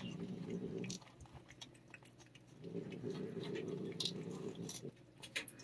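A cat licking lickable paste treat from a squeezed tube, wet licking and smacking in two stretches, with a few small clicks near the end.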